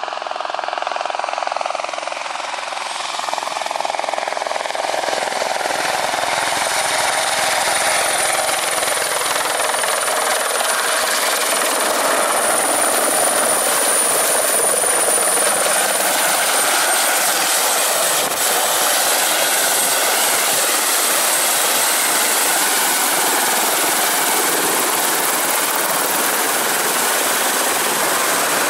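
A light helicopter coming in close and then running on the ground, its rotor and engine noise growing louder over the first several seconds and then holding steady. A thin, high whine runs over it and drops slightly in pitch a little past halfway.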